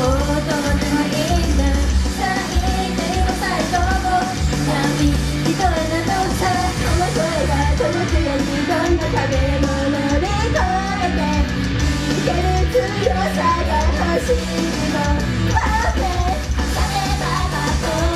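Japanese idol group performing live: female voices singing over loud rock backing music.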